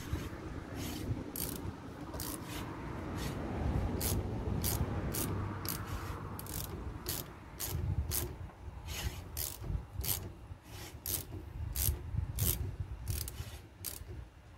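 Ratchet clicking in short, even strokes, coming faster in the second half, as the outer brake pad adjuster bolt on a Polaris RZR front caliper is tightened in, under a low rubbing from the brake rotor dragging against the pads.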